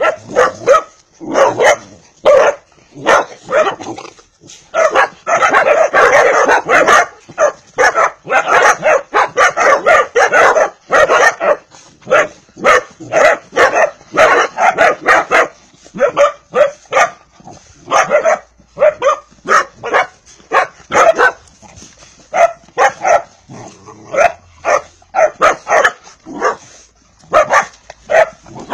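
Vizsla puppies and dogs barking and yipping over and over, many short barks in quick succession, with the densest run from about five to eleven seconds in.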